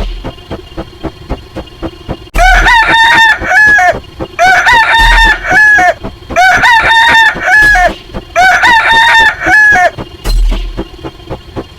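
Rooster crowing sound effect: four long crows in a row, loud, over faint regular ticking.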